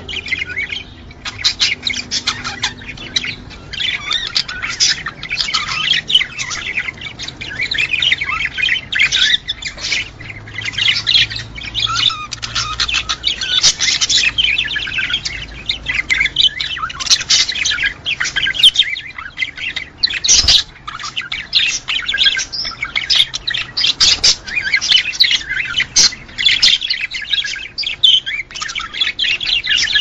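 Budgerigars chattering and warbling: an unbroken stream of rapid chirps, twitters and squawks.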